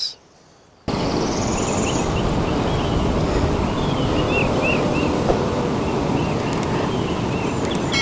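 A steady rushing noise starts suddenly about a second in, with a few short bird chirps over it in the middle.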